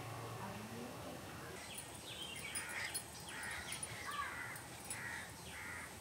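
Crows and other birds calling repeatedly in the background, short calls every fraction of a second from about two seconds in, with faint light ticks of a knife scraping along a small fish's skin and scales.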